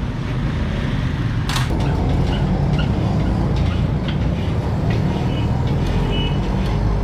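Steady low rumble of a motor vehicle engine running nearby, with a single sharp knock about one and a half seconds in.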